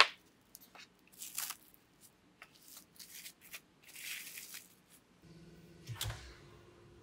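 Kitchen handling noises: a sharp click, then several short rustles. About five seconds in a low steady hum starts, with a soft thump just after it.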